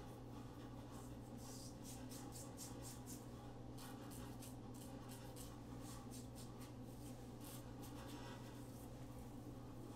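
Supply 2.0 single edge injector razor scraping through lathered stubble in short, repeated strokes, faint, over a steady low hum.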